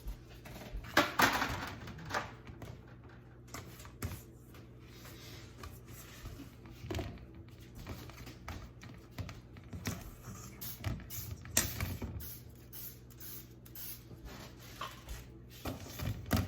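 Kitchen handling noise: irregular clicks, taps and clatters of metal cookie sheets and utensils being handled, loudest about a second in and again past the middle, over a steady low hum.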